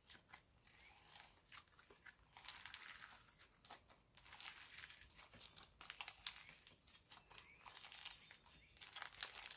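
White glue floam slime, full of tiny foam beads, being squished and stretched in the hands: a quick run of faint crackles, pops and sticky clicks that grows busier about two seconds in.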